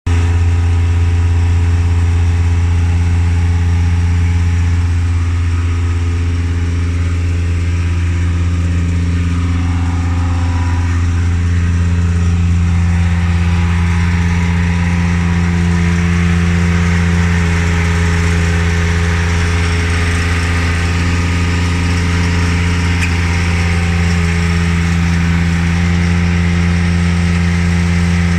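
An engine running steadily at a constant speed, a loud low hum with no revving or change over the whole stretch.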